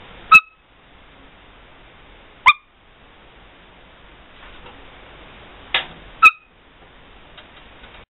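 Black-headed caique giving three short, sharp, loud squeaks a couple of seconds apart, with a rougher, noisier squawk just before the last one.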